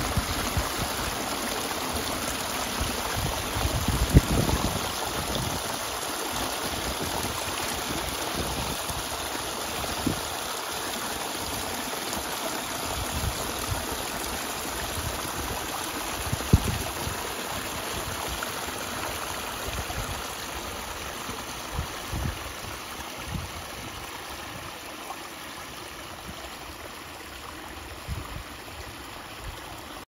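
Water of a pondless waterfall spilling over rock ledges and splashing down a rocky stream bed, a steady rushing and trickling that grows fainter over the last several seconds. A few low bumps come through, the loudest about four seconds in.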